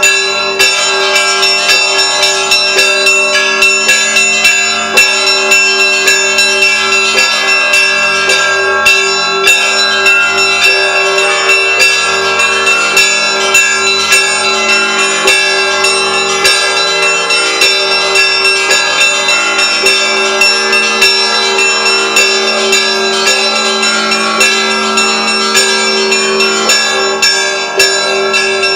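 Russian Orthodox church bells of the Kazan Cathedral ringing a zvon: small bells struck in a rapid, continuous pattern over the sustained ring of larger bells, with a deeper bell sounding every couple of seconds.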